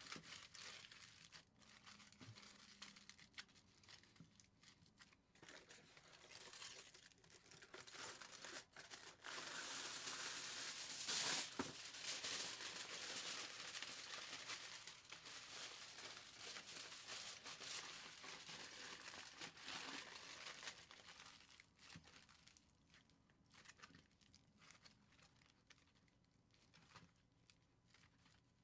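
Aluminum foil being crumpled and pressed into shape by hand, a crackly crinkling made of many small clicks. It is loudest in the middle and grows quieter near the end.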